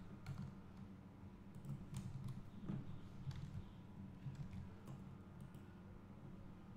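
Faint, scattered computer keyboard key presses and mouse clicks over a low steady hum.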